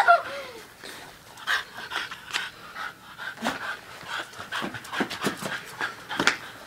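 A dog panting in short, uneven breaths, a few a second.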